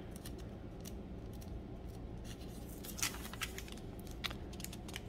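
Thin pages of a new study Bible being turned by hand: soft paper rustles and clicks, with a sharper crackle about three seconds in, over a faint low hum.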